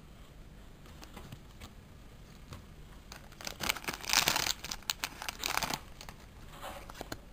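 A trading-card booster pack wrapper crinkling and tearing as it is opened, in a cluster of crackles lasting about three seconds and loudest around the middle, after a quieter start.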